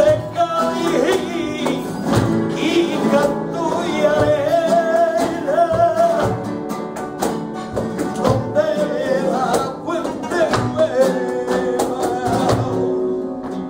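Live flamenco: a man sings long, wavering notes over Spanish guitars, with sharp handclaps (palmas) throughout.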